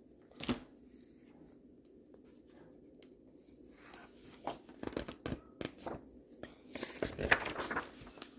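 Quiet room tone, then from about four seconds in a run of soft clicks and paper rustling: the pages of a picture book being handled and turned.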